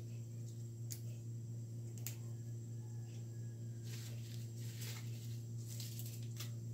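Soft crisp rustles and snaps of siling labuyo (wild chili) leaves being plucked from their stems by hand, busiest about four seconds in, over a steady low hum.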